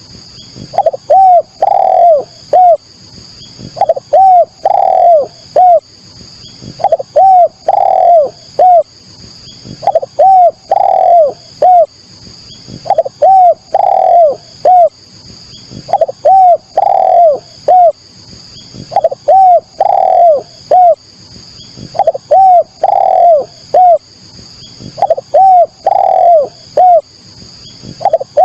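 Spotted dove (derkuku) cooing loudly in short repeated phrases, one about every two seconds. Each phrase is a few rounded coos with one longer, fuller note in the middle. This is a lure call used to get other doves calling.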